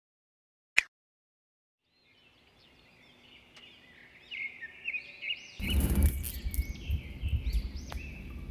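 Outdoor ambience fading in: small birds chirping repeatedly, joined about halfway by a low, uneven rumbling noise. A single sharp click comes near the start.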